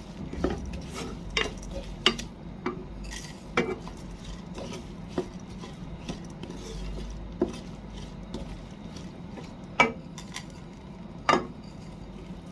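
A spoon stirring sev into tomato masala in a cooking pan, clinking and knocking irregularly against the pan, with two louder knocks near the end.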